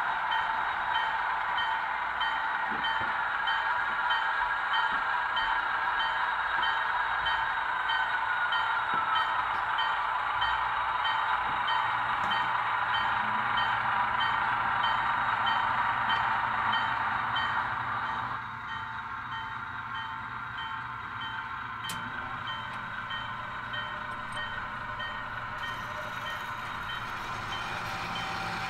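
HO scale model train running on the layout: a steady whirring rush from the locomotive and wheels on the track, with a small bell-like ding repeating about twice a second. The rush gets quieter about two-thirds of the way through.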